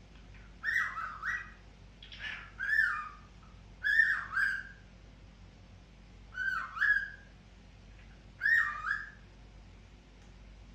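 A cockatiel whistling a short call again and again, about five times at roughly two-second gaps. Each call is a quick rising-and-falling whistle in two or three parts. The calls stop about nine seconds in.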